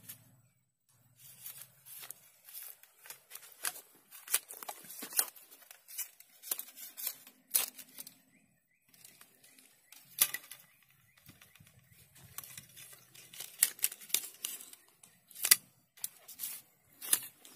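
Irregular sharp clicks and light rustling as a telescopic tegek fishing pole is handled and its sections worked, with the loudest click near the end.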